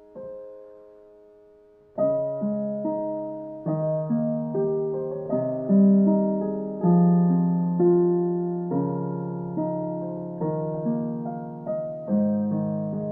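Background piano music: a soft, fading note, then fuller piano chords from about two seconds in.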